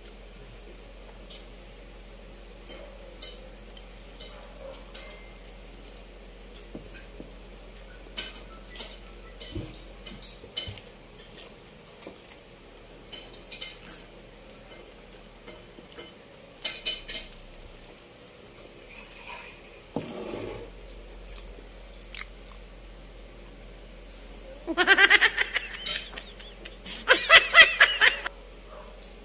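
Mouth sounds of eating kutsinta and puto, soft Filipino steamed rice cakes: wet chewing and lip smacks, with scattered small clicks. Near the end come two loud vocal sounds, each a second or two long.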